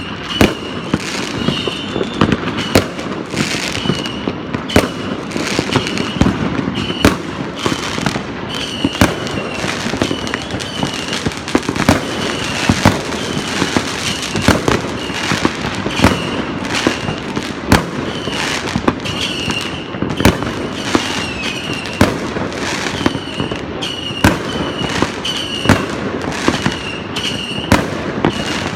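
Fireworks and firecrackers going off all across a city at once: a constant din of distant bangs and crackling, with sharper, louder blasts every second or so. A short high chirp repeats about once a second over the top.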